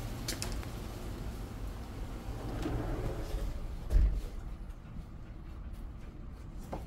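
A door being shut with one heavy thump about four seconds in, after which the outside background noise drops away; before it come a few sharp clicks and some rustling, and faint ticks follow.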